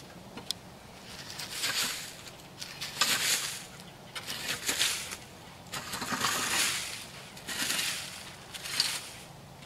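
A rake scraping over the dirt and litter of a chicken pen, in about six strokes, roughly one every second and a half.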